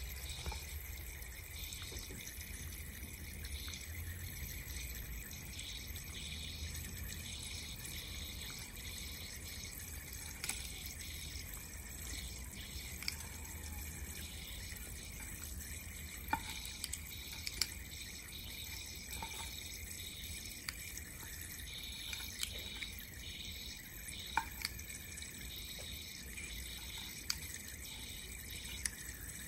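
Eastern box turtles biting at Reptomin food sticks on a plastic feeding tray: scattered small sharp clicks and crunches, one every second or few, over a steady high hiss and low hum.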